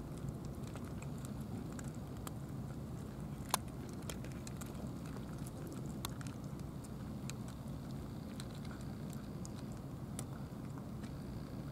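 Cats eating dry kibble from plastic bowls: scattered crunches and small clicks over a steady low rumble, with one sharper click about three and a half seconds in.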